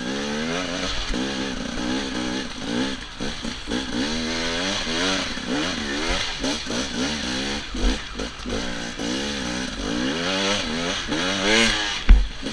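Enduro dirt bike engine, close to the helmet microphone, revving up and down again and again as the throttle is worked riding off-road up a slope. A sharp knock comes near the end.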